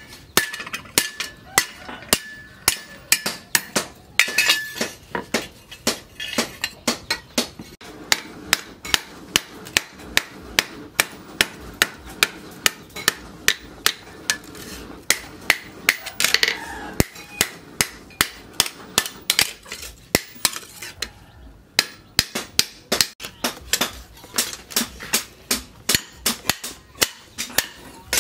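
Hand hammer forging a red-hot steel cleaver blade, cut from a tractor disc plough, on a steel post anvil: sharp metal-on-metal blows about two to three a second, with a short break about 21 seconds in.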